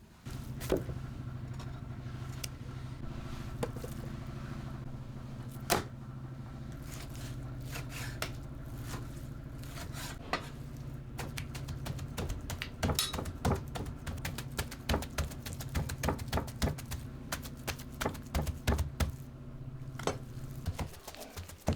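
An electric motor switched on, running with a steady hum, and switched off again near the end, with a growing stream of clicks and knocks over it.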